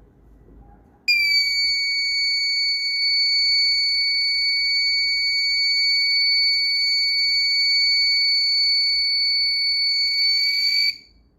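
Electronic buzzer of a homemade transistor touch-alarm circuit sounding one steady, shrill, high-pitched tone. It starts abruptly about a second in, holds for about ten seconds and cuts off near the end.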